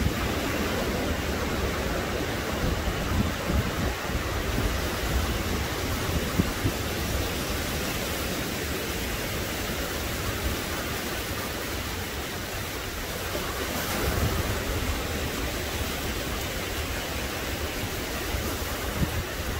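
Ocean surf washing steadily in the shallows as small waves break on the beach, with wind rumbling on the microphone.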